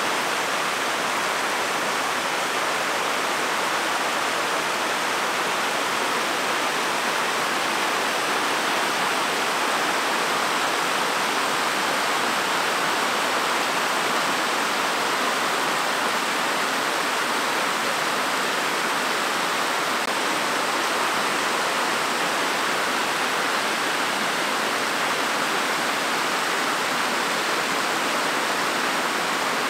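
Steady rushing water.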